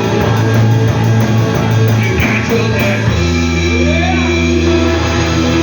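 Rock music with guitar, the bass moving to a new held chord about three seconds in.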